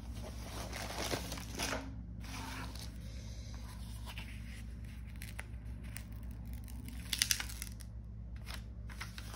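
Protective plastic film on a diamond-painting canvas crinkling and crackling as it is handled and lifted, with a louder crackle about seven seconds in, over a steady low hum.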